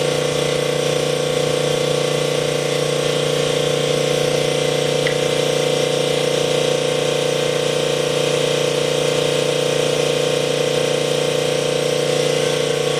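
Sunnen honing machine running with a steady hum while it hones the big-end bore of a worn connecting rod, resizing it.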